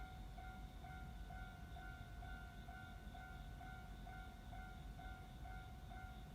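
Japanese railway level-crossing alarm ringing its repeating electronic chime about twice a second, over a low background rumble.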